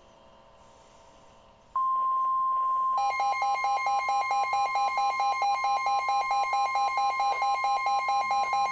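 NOAA Weather Radio warning alarm. After a faint hiss, the steady 1050 Hz alert tone switches on about two seconds in. About a second later a rapid pulsing beep from the receiver's alarm joins it. The two together signal that a warning, a severe thunderstorm warning, is about to be read.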